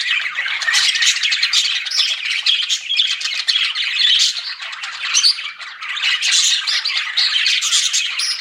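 A group of budgerigars (budgies) chattering and chirping, many short squawky calls overlapping without a break.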